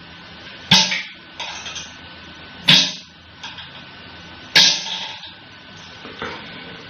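Music with sharp, plucked-string strums: a loud strum about every two seconds, softer ones in between.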